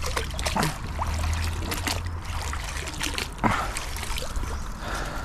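Water trickling and splashing as a fishing magnet on a wet rope is pulled up out of the canal, with a string of short sharp splashes and hits, the loudest about three and a half seconds in.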